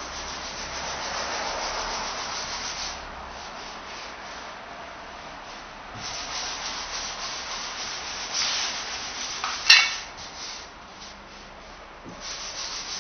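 Rubbing on a car's painted rear fender panel: uneven hissing strokes that swell and fade, with one sharp click about ten seconds in.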